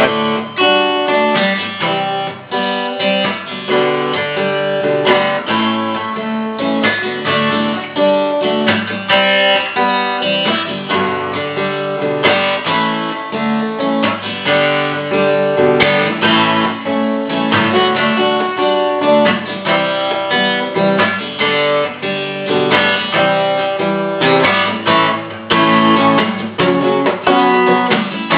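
Acoustic guitar strummed in a steady rhythm, chord after chord, as an instrumental introduction to a song.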